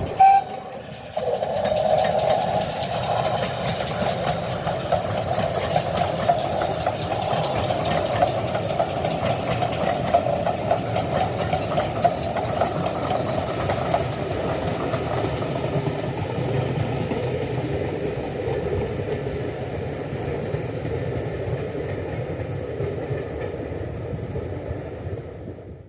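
Steam locomotive hauling a train of passenger coaches as it passes: a steady running sound of the train that eases slowly towards the end, with a brief loud sound right at the start.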